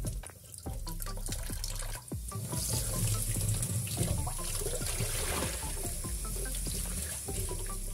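Tap water running into a stainless-steel sink and splashing as raw chicken pieces are rinsed by hand over a plastic bowl, with small splashes and drips throughout. The stream gets louder and hissier about two and a half seconds in.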